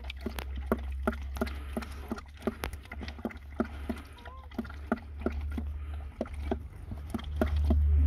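Mother dog licking and chewing at a newborn puppy's birth sac and placenta: wet smacking clicks, about three to four a second. A newborn puppy gives a brief squeak about four seconds in, and a low rumble swells near the end.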